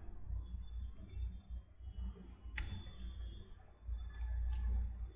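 A handful of separate computer keyboard keystrokes and mouse clicks, the sharpest about two and a half seconds in, over a low steady hum.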